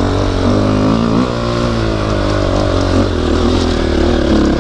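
2009 KTM 250 XC-F dirt bike's four-stroke single-cylinder engine pulling up a dirt hill trail at low revs. Its pitch rises and falls a little with the throttle.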